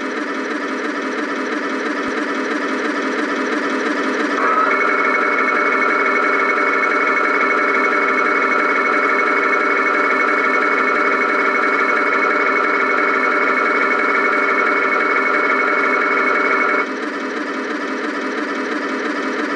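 Tamiya 1/16 Full Option RC Panther Ausf.G's sound unit playing a steady idling tank-engine sound through its small speaker. About four seconds in a steady whine joins as the turret traverses, and it stops about seventeen seconds in.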